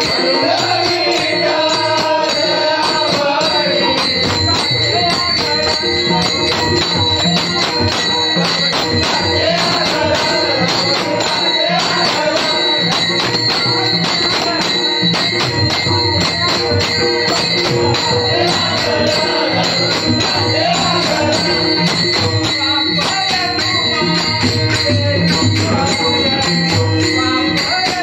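Marathi devotional bhajan: an elderly man sings in a strong voice, accompanied by laced hand drums and steady jingling percussion in an even rhythm.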